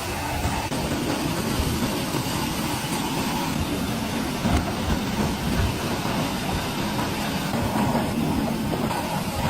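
Steady mechanical rumble of machinery running, with no distinct strokes or rhythm.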